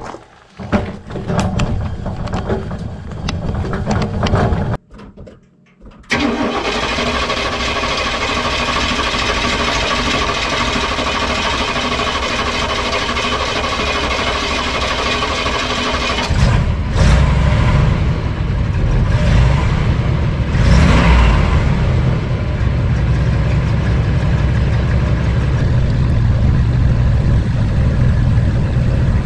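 Portable electric air compressor kicks on suddenly and runs steadily with a loud motor-and-pump drone, growing heavier about ten seconds later, while it supplies air through a hose to a flat truck tire. Before it starts there are a few seconds of clatter and a brief pause.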